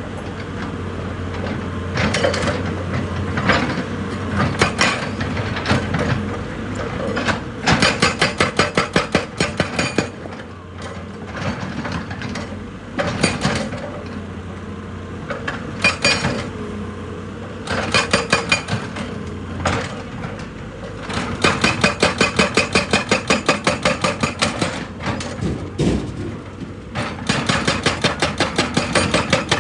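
Heavy machinery hammering at rock in repeated runs of rapid, evenly spaced blows, about seven a second, each run lasting one to three seconds, over a steady engine hum.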